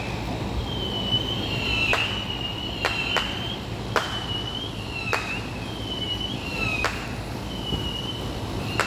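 Distant fireworks going off: sharp cracks about once a second, with short high squeaky whistling tones between them, over a steady low rumble.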